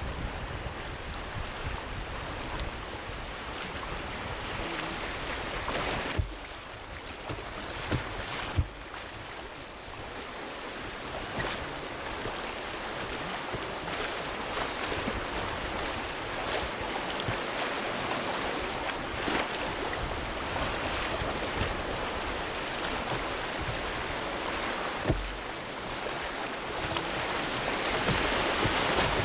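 Rushing whitewater of a river running high on a dam release, heard from a kayak moving through wave trains, with waves splashing around the hull. A few sharp knocks stand out, about six seconds in, twice around eight seconds, and near twenty-five seconds.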